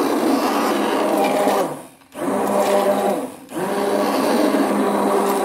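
Electric stick blender running in a pot of thick homemade laundry-soap mixture, a steady motor hum. It is switched off twice briefly, about two seconds in and again a second and a half later, the pitch falling and rising back each time, and it winds down at the very end.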